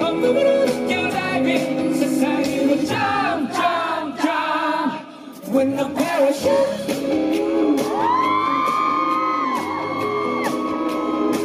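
Live band playing a rock-pop song with a male lead vocal, heard through the festival sound system. The music drops out briefly about five seconds in, and near the end a high, sliding held note rises over the band.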